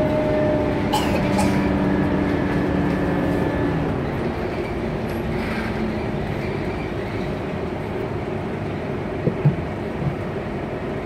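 City bus under way, heard from the passenger cabin: steady engine and road rumble with a whine of several steady tones that fades out about four seconds in. Two short clicks come about a second in, and a few knocks near the end.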